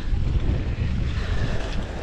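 Wind buffeting the microphone in a steady low rumble, over sea water washing against the rocks.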